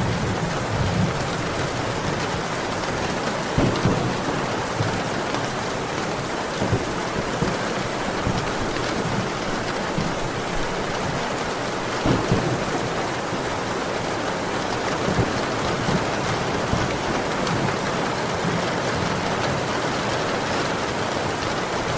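Heavy rain pouring steadily, with a low rumble of distant thunder near the start and a few brief louder spatters.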